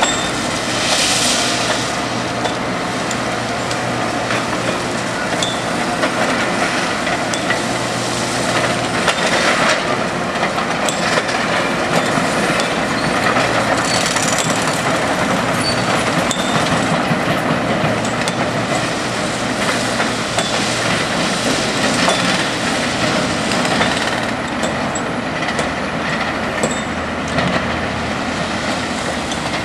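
Freight train cars rolling past on the adjacent track, a steady clatter and rumble of wheels on rail, mixed with the diesel engines of the excavator and backhoe running at the track work.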